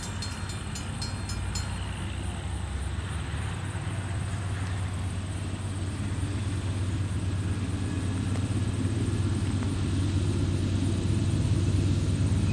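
Rhythmic clicking, as of rail wheels passing over joints, dies away about a second and a half in. A steady low engine rumble follows and grows slowly louder, as a heavy engine draws nearer.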